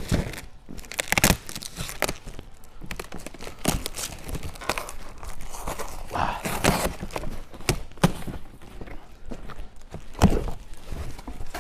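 Plastic wrap crinkling and tearing while a cardboard box is opened and unpacked, with cardboard rustling and sharp knocks of the box and its contents being handled. The loudest knocks come about a second in and near the end.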